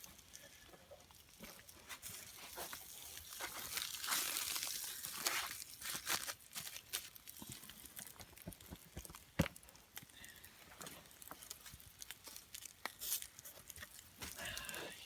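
Tin foil crinkling and rustling as foil-wrapped kippers are turned over on a campfire grill, with scattered sharp clicks throughout.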